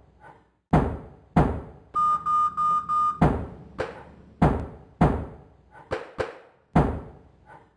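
A beat pieced together on the Mad Pad app from sampled hotel-room sounds: sharp knocks and thunks about every half second to second, with a run of four quick electronic beeps about two seconds in.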